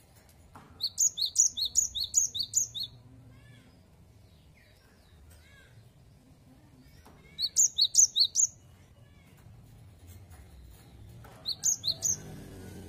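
Cinereous tit (gelatik batu) singing its 'wucit wucit' song: rapid runs of high, sharp two-note phrases, about five a second. It sings three bursts, a long one near the start, another in the middle and a short one near the end.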